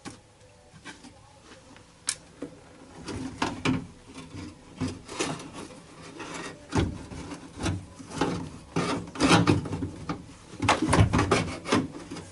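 A window regulator and motor assembly being worked into a car door shell: irregular knocks, clicks and scraping of metal parts rubbing against the door, starting about two seconds in and busiest near the end.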